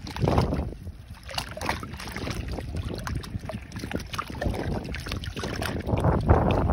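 Seawater sloshing and lapping in a narrow crack between concrete seawall blocks, coming in irregular surges that swell just after the start and again near the end.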